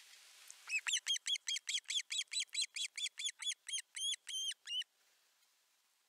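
Osprey calling at the nest: a rapid series of about twenty short, whistled notes, about five a second, the last few drawn out, stopping abruptly about five seconds in.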